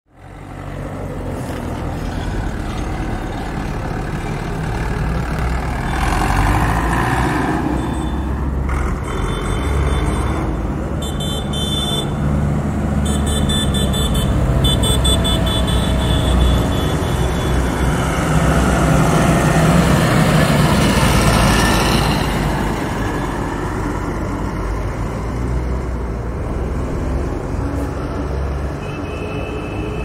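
Heavy city traffic at a busy intersection: a steady rumble of car and truck engines, with car horns honking several times, mostly around the middle.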